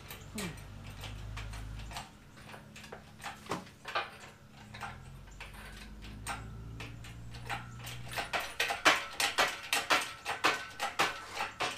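Hand tools and small metal parts clicking and clattering as an outboard powerhead is worked on, ending in a quick run of sharp clicks over the last few seconds. A low hum sounds under it at the start and again for a couple of seconds around the middle.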